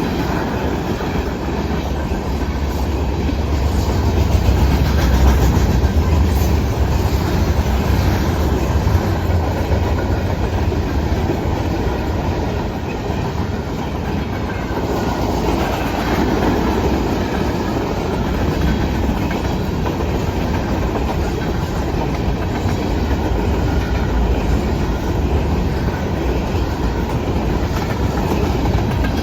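Norfolk Southern manifest freight train's cars rolling past, a steady loud rumble with wheels clicking over rail joints.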